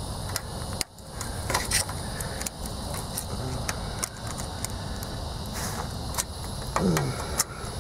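Light metallic clicks and taps of a screwdriver working at the snap ring on a pickup's lower ball joint, over a steady high chirring of insects.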